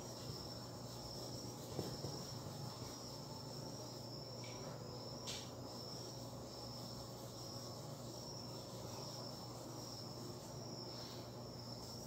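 A cricket chirping in short, evenly repeating high pulses over a low steady hum, with a single click about five seconds in.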